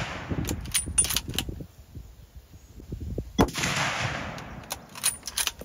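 .270 Winchester Model 70 Featherweight bolt-action rifle: the echo of the previous shot dies away and the bolt is worked with a few clicks. A second shot cracks about three and a half seconds in and rolls off in a long echo, followed by more bolt clicks near the end.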